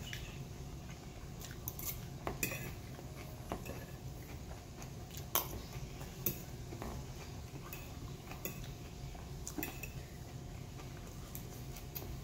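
A metal fork clinking and scraping against a plate as salad is picked up, in scattered short clicks, over a steady low hum.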